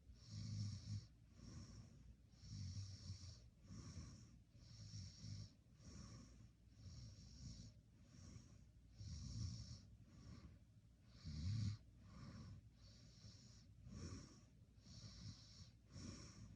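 A person snoring faintly, a breathy snore about once a second. Each snore has a low rumble under a hiss, and a few are louder than the rest.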